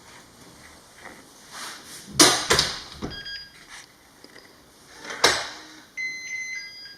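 A door being opened and shut: two sharp knocks about two seconds in and a louder bang past the halfway point, with brief high thin tones near the middle and near the end.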